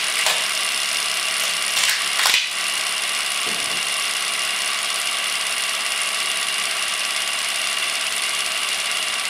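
Adhesive tape pulled and ripped off a roll a few times in the first couple of seconds, over a steady hiss with a thin whine.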